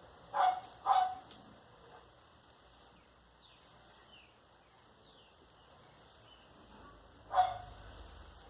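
A dog barking: two barks about half a second apart, then a single bark near the end.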